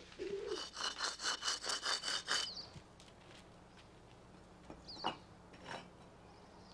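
Saw cutting through wood in quick, even strokes for about two seconds, then stopping; two light knocks follow near the end.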